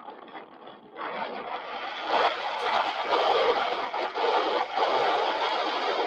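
Wind rushing over a camera microphone strapped to a flying eagle's back. It gets louder about a second in and louder still from about two seconds in.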